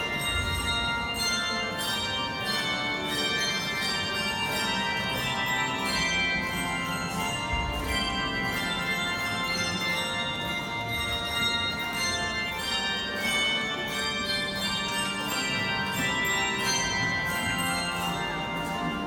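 Handbell choir playing a piece: many bells struck in chords, with new notes coming every fraction of a second over sustained ringing.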